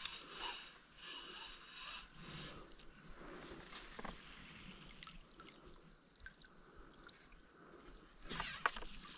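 Faint splashing and trickling of water, in short bursts over the first couple of seconds and again near the end.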